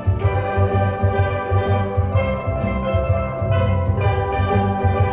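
Steel pan band playing a tune together: many pans ringing with quickly struck notes over a steady, pulsing low beat.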